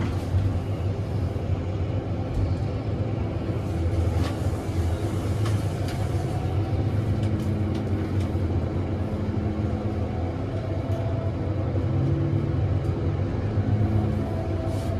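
A glass elevator car in motion: a steady low rumble and hum, with a faint higher hum coming in about halfway.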